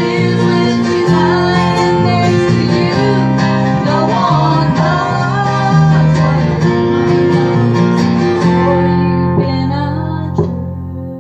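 Band music led by guitar over steady bass notes, during a sound-check run-through; it dies down near the end.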